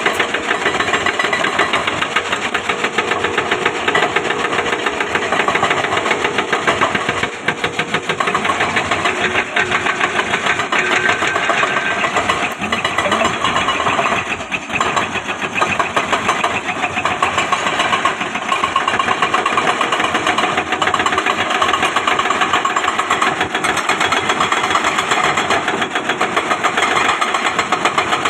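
Heavy excavator's diesel engine running steadily, with a continuous rapid chugging.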